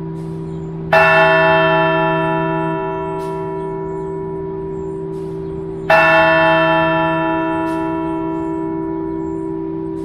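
A large bronze church bell of the cathedral's 11-bell chime struck twice by its clapper, about five seconds apart, each stroke ringing on and slowly fading, while deeper bell tones from earlier strikes keep humming underneath. Heard up close inside the bell chamber.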